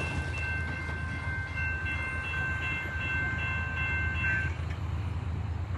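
Train rumbling, with a high, steady ringing tone over it that stops about four and a half seconds in.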